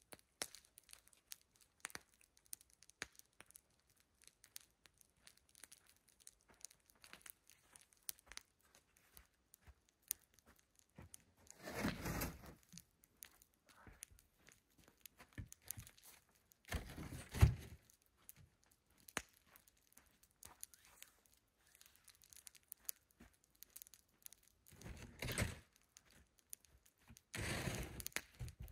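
Jiffy Pop foil pan crinkling and rustling as popcorn is picked out and eaten: faint scattered clicks with a handful of louder rustles spread through.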